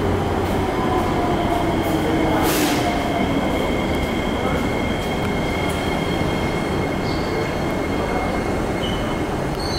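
SMRT C151 electric train standing at the platform with its doors open: a steady high-pitched whine over a low hum from the train's equipment, with a short hiss about two and a half seconds in.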